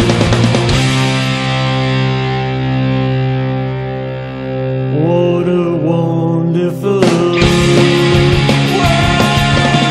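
Rock music with distorted electric guitar: a held chord rings for a few seconds without drums, the guitar bends notes around the middle, and the full band with drums comes back in a little after seven seconds in.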